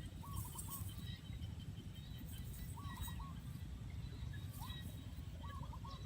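A bird calling faintly: a short phrase of two or three quick hooked notes, repeated four times, over a steady low rumble.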